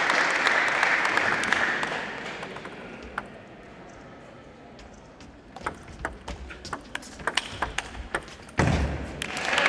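Applause dies away, and then a table tennis rally is heard: the celluloid ball clicking sharply off paddles and table several times a second. A heavy thump comes near the end, and applause starts up again.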